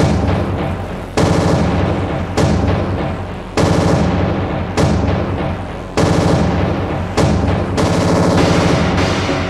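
Martial industrial music: a heavy drum strike about every 1.2 seconds, each ringing out and fading over a sustained droning chord.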